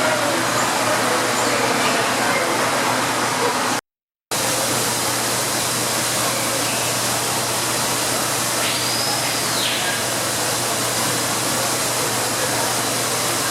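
Steady rush of falling water, like an indoor waterfall, with a brief dropout about four seconds in. A faint high whistle, rising then falling, comes about nine seconds in.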